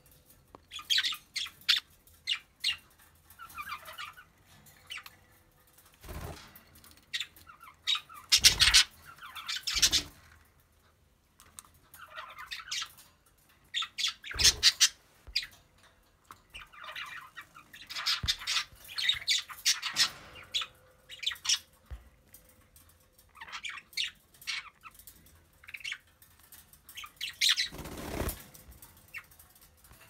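A small flock of budgerigars chattering and squawking in short bursts of calls with pauses between. A few louder flutters of wings sound close by.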